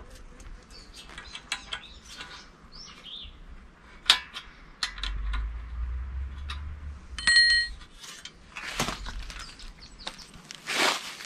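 Sharp metal clicks and knocks of a small tool working the clamp that fixes a scythe blade to its metal snath, with a short ringing clink about seven seconds in. Birds chirp faintly behind, and a louder brief swish comes near the end as the scythe is lifted.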